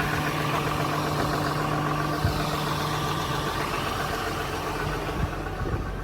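The 2010 Ram 5500's 6.7 Cummins diesel engine idling steadily, with a couple of light clicks.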